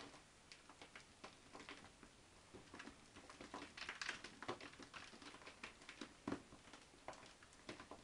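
Faint, irregular crackles, rustles and light taps as fingers pick old bark potting mix out of an orchid's root ball, bits of bark dropping onto a wooden table. The rustling is densest about four seconds in.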